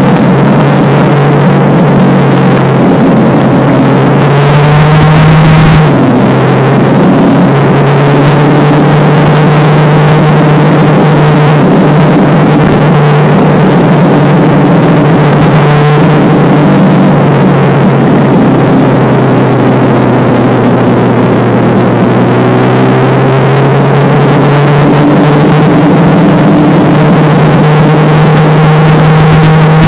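Motorcycle engine running under way, a steady engine note that drifts slowly up and down in pitch, with a brief change about six seconds in and a gradual rise near the end, over a constant rush of noise.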